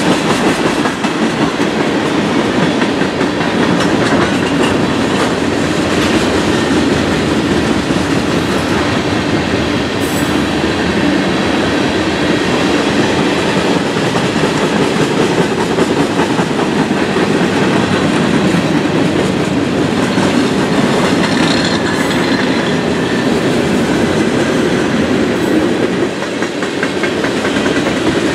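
Freight train's cars rolling past close by, a steady, loud rumble of steel wheels on the rails. The passing cars are tank cars and flatcars loaded with lumber.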